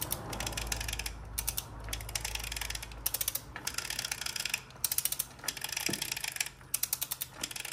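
Ratcheting torque wrench swung back and forth, its ratchet clicking rapidly on each back-stroke in repeated runs, as it screws down the oil filter housing cap of a VW/Audi 1.8 TFSI engine. The wrench has not yet reached its 25 N·m setting and given its torque click.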